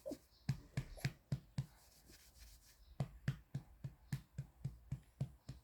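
A hand patting a baby's back to bring up a burp: soft, even pats at about three to four a second, pausing for about a second midway, then starting again.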